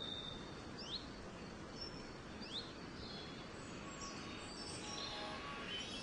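Faint, steady outdoor background hiss with a few short, rising bird chirps in the first half.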